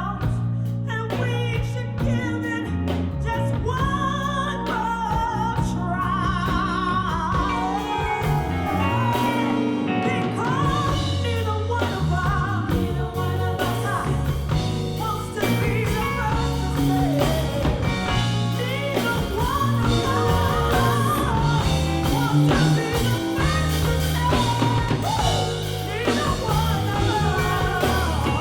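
A singer holding wavering, vibrato-laden notes over a band with bass, drums and guitar.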